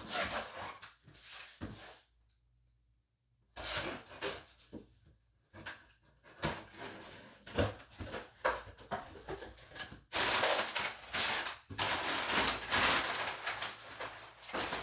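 Cardboard shipping box being opened and handled: knocks and clicks, then long stretches of scraping, tearing and rustling of cardboard and paper from about ten seconds in.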